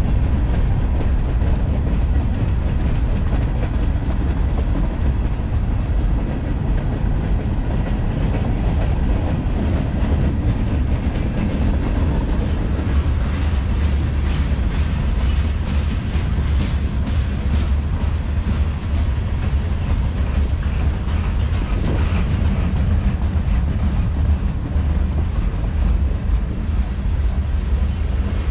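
CSX freight train's boxcars and covered hopper cars rolling past close by: a steady heavy rumble of steel wheels on rail, with clicking from the wheels running over the track in the middle stretch.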